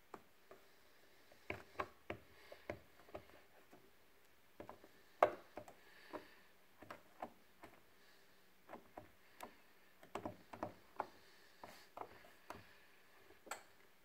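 Gas combi boiler (Baxi Duo-Tec 2 Combi 28 GA) clicking irregularly, sharp ticks coming in spells of several a second, as it tries to light after a reset from fault code 133, the model's ignition-failure code.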